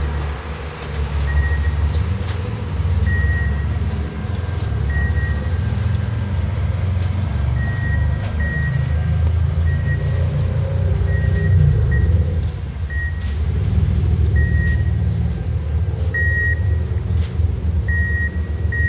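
A rail maintenance-of-way track machine running along the track, its engine giving a steady low rumble, while its warning beeper sounds repeatedly with short high beeps about once a second.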